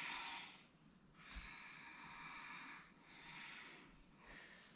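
A woman's faint, slow breathing: a few long, hissy in- and out-breaths, the longest lasting about a second and a half.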